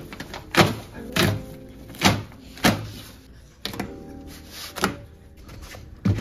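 A handful of irregular knocks and thuds, about six in all, the loudest in the first three seconds, over faint background music.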